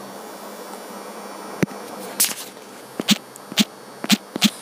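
Steady faint hiss of a voice-over microphone between sentences, broken by a handful of short, sharp clicks, several in quick succession near the end.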